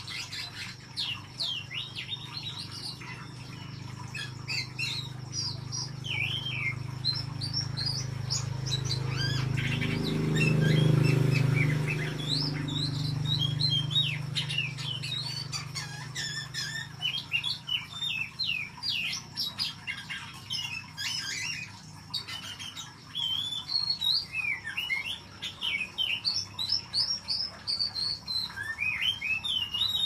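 Caged oriental magpie-robin singing actively: a fast, varied string of short whistles and chirps. Around the middle a low rumble swells and fades, briefly the loudest sound.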